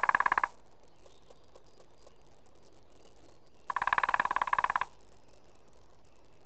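Lesser spotted woodpecker drumming on a tree trunk: a roll of rapid strikes that ends half a second in, then a second full roll of about a second some four seconds in, with faint ticks between.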